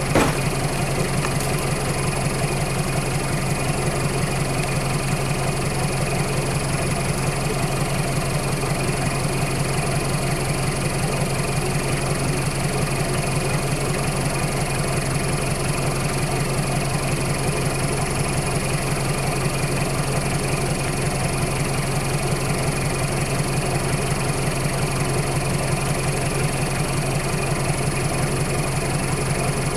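Vehicle engine idling steadily with a low, even drone; the revs do not rise or fall.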